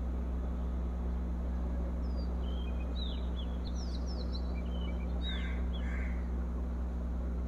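A steady low hum with a constant hiss throughout. In the middle, a few faint, short bird chirps sound in the background.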